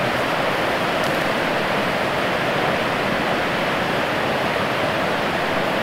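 Fast river water rushing over rapids: a steady, unbroken wash of moving water.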